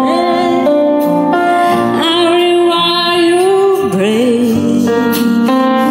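A woman singing into a microphone, amplified through a small portable amplifier over instrumental accompaniment, holding long notes with vibrato.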